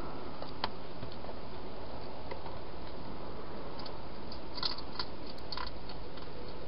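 A hedgehog eating from a plastic bowl: a few small sharp clicks and crunches, once early on and then a cluster about two-thirds of the way through, over a steady hiss.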